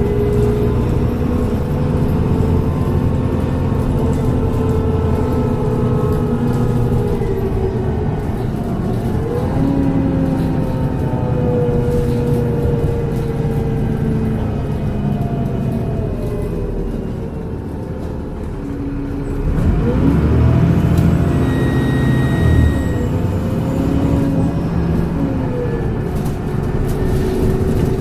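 Transbus Trident double-decker bus with a Voith automatic gearbox, its engine and drivetrain running on the move. The engine pitch sinks slowly, then climbs again as the bus pulls away, once about ten seconds in and again about twenty seconds in.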